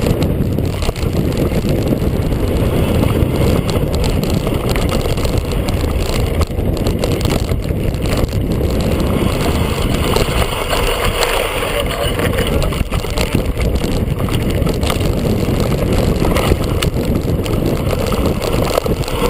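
Mountain bike's knobby tyres rolling fast over a snow-covered, stony trail, with a steady rush of wind on the microphone and frequent small knocks and rattles from the bumps.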